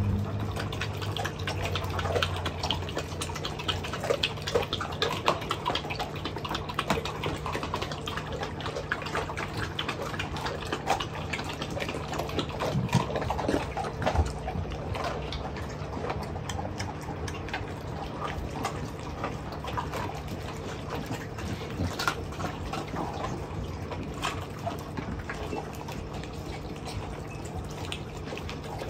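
Dogs eating raw chicken: wet chewing, licking and crunching of bones, heard as a dense run of small clicks and crackles, over a steady low hum.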